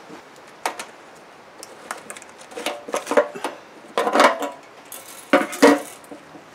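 Clicks and clattering as the fuel tank cap of a Predator 420cc engine is unscrewed and lifted off. The noise comes in three bunches, the loudest near the end.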